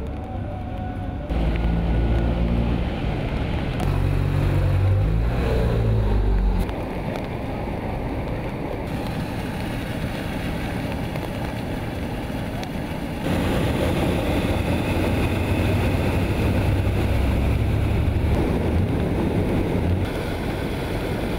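Vehicle engine running under load, its low hum growing louder and shifting in pitch twice, over a steady rushing noise.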